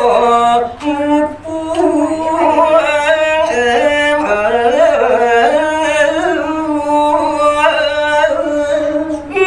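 A solo male voice singing a line of Balinese tembang in pupuh Sinom, with long held notes that waver and bend in pitch. There is a brief breath pause about a second and a half in.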